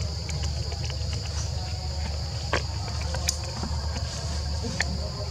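Steady high-pitched insect chorus over a low steady rumble, with three short sharp clicks in the second half.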